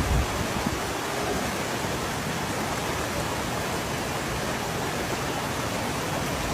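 Flash-flood torrent of water rushing past in a steady, even roar of noise, with a few low thumps right at the start.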